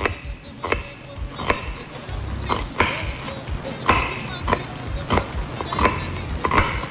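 Chef's knife slicing a red onion into thin strips on a wooden cutting board: about ten sharp knocks of the blade on the board, unevenly spaced, roughly one every two-thirds of a second.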